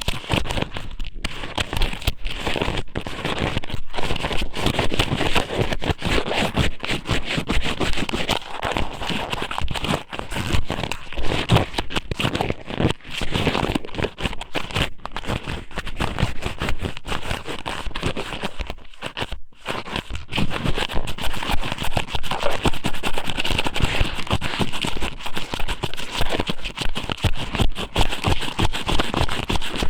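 Thin strips of squid (ika sōmen) pushed into and rubbed around a microphone's ear, giving a dense, continuous close-up crackling and scraping.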